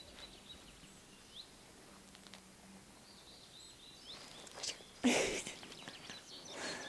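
Quiet outdoor background with small birds chirping faintly. About five seconds in comes a short, louder rustling burst, and a smaller one near the end.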